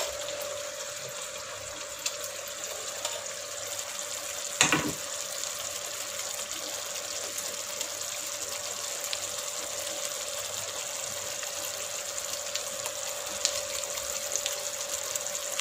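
Thick masala gravy simmering and sizzling in a pan: a steady hiss with a faint steady hum under it. A single sharp knock sounds about five seconds in, with a few light ticks later.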